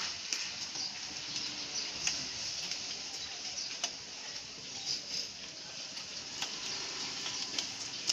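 Scattered light clicks and taps from hands handling cables and connectors inside a desktop computer case, over a steady hiss.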